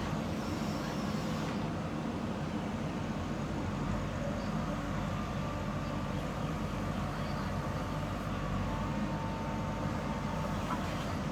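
Heavy diesel engine of earth-moving machinery running steadily at constant speed, a low even drone.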